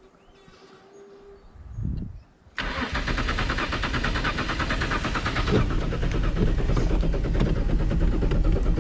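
Holden VL Commodore engine cranking over on its starter motor with a fast, even chug. It starts abruptly about two and a half seconds in and never catches: the engine is getting fuel but does not fire.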